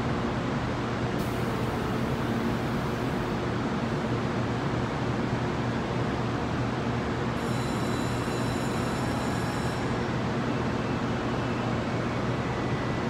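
JR Kyushu 813 series electric train standing at the platform, its onboard equipment giving a steady hum. A brief high hiss comes about a second in, and a thin high-pitched tone sounds for about two seconds midway.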